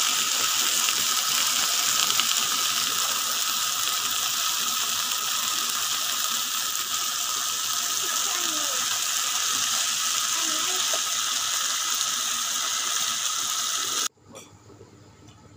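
Beef and sliced vegetables frying on a hot grill pan: a steady, dense crackling sizzle that cuts off suddenly near the end.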